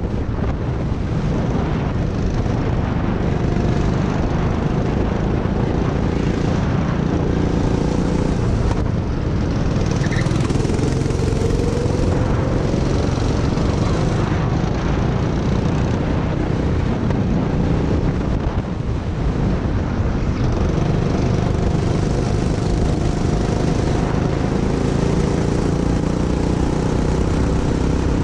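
Go-kart engine heard from on board, running hard throughout, its pitch rising and falling as the kart accelerates out of corners and slows into them, with a brief dip about two-thirds of the way through.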